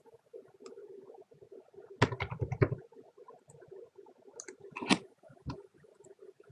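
Computer keyboard typing a short number: a quick run of about half a dozen keystrokes about two seconds in. A few separate clicks follow near five seconds, over a faint steady hum.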